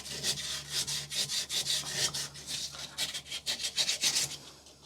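Wet-and-dry sandpaper rubbed back and forth in quick strokes on the metal idler post of a clothes dryer, taking off burrs and raised metal left by the old idler pulley. The rubbing stops shortly before the end.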